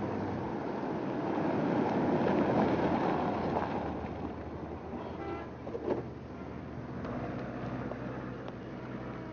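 A car drives up and pulls in, its engine and tyre noise swelling and then fading as it slows. A short squeak comes about five seconds in and a single thump about a second later, followed by a low steady hum.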